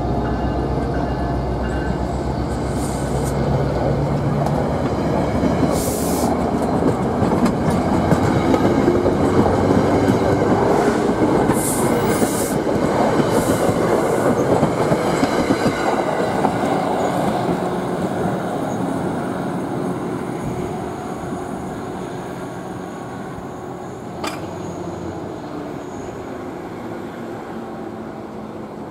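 Commuter passenger coaches rolling past at slow speed as the train pulls into a station, wheels rumbling on the rails with several brief high squeals and hisses; a low diesel hum from the locomotive dies away in the first few seconds. The whole sound fades steadily over the last ten seconds.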